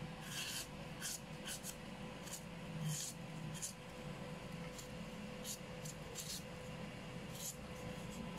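A kitchen knife chopping into a hand-held green papaya and shaving off the shreds for som tum, making crisp, irregular strokes about once a second.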